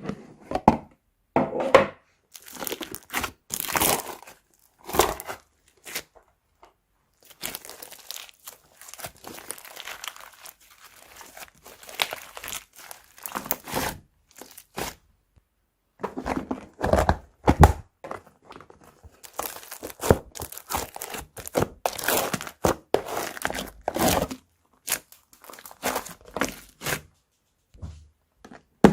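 Crunchy slime being mixed, with irregular crackling and crinkling and two short pauses.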